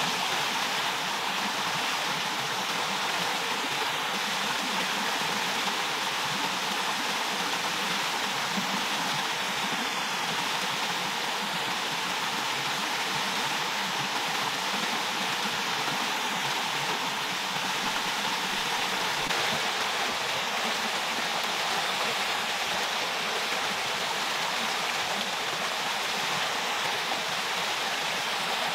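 Small forest stream running steadily over rocks beneath a bamboo footbridge, an even rushing and splashing of water.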